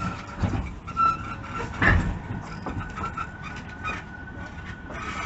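A JR Central 313 series 0-subseries electric train heard while running, with a steady high whine over the rumble and rattle of the car, a loud clunk about two seconds in and a smaller one earlier. This is the abnormal noise the uploader finds frightening and unpleasant on this train.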